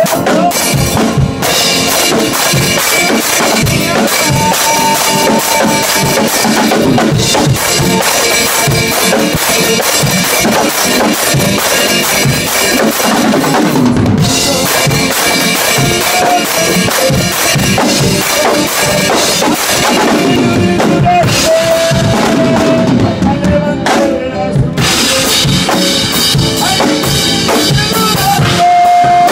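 Drum kit played hard and fast close up: snare, toms, bass drum and cymbals in a steady driving rhythm, with a few long held notes underneath.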